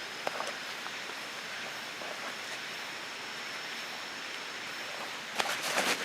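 Steady outdoor ambience, an even hiss with a faint high steady whine over it, until a burst of crackling rustles starts about five seconds in.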